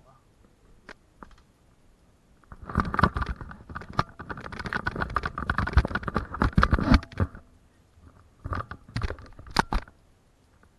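Crunching and rustling footsteps through leaf litter and undergrowth on a forest path, a dense run of crackles from about three to seven seconds in, then a shorter burst near the end.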